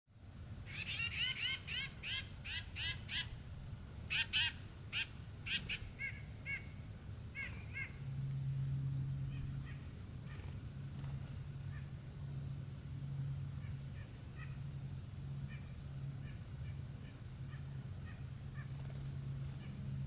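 Small songbirds calling at a feeder: a quick run of loud, repeated calls in the first six seconds, then scattered faint chips over a steady low hum.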